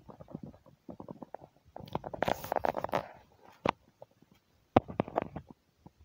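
Crackling and rustling of footsteps through dry dead grass and brush, in uneven clusters with a denser rustle about two to three seconds in.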